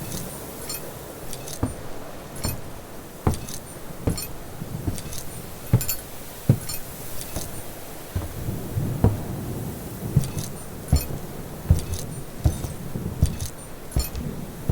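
Repeated metallic clinking and jingling, a sharp strike every second or less with a bright ringing tail, over a low rumbling background.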